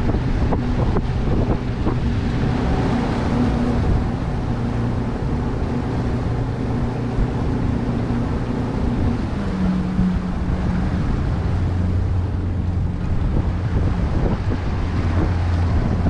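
A boat's engine running steadily, with wind buffeting the microphone. About ten seconds in, the engine's note steps down to a lower pitch.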